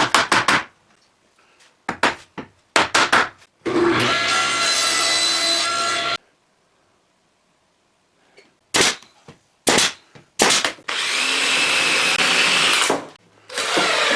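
A power tool running in two steady bursts of about two seconds each, working on the brackets, between sharp clicks and knocks of tools and parts being handled.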